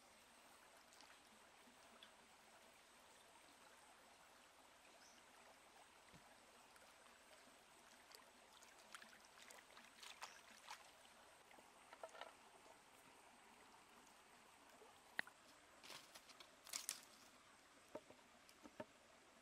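Faint, steady running stream water, with irregular small splashes and clicks in the second half as hands wash chili peppers in the stream.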